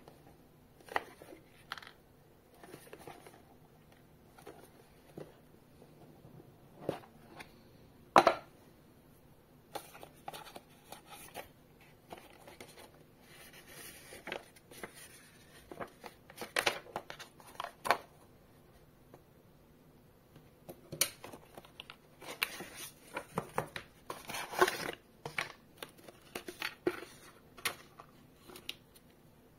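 Cardboard box and paper packaging being handled: paper rustling and crinkling, cardboard sliding and scraping, with scattered light clicks and knocks. The loudest is a sharp knock about eight seconds in, and the rustling grows busier in the second half.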